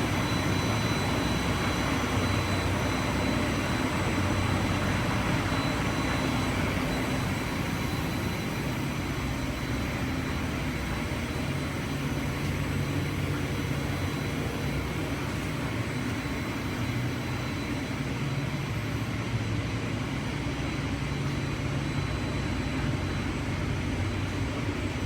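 Countertop grinding machine running steadily, with a low hum and a thin high whine.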